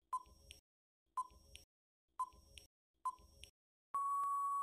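Countdown timer sound effect: four short electronic beeps about a second apart, each followed by a faint tick, then a longer steady beep about four seconds in as the timer runs out.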